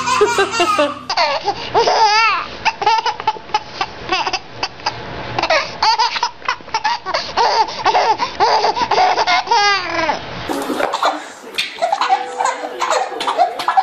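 Babies laughing hard, with high, squealing belly laughs and giggles. The sound changes abruptly about a second in and again near the end as one clip cuts to the next.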